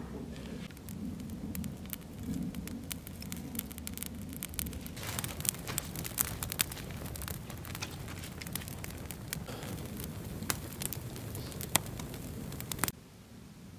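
Campfire of split kindling crackling and popping as it catches, over a low rumble; the sharp pops become frequent from about five seconds in. The sound drops away suddenly near the end.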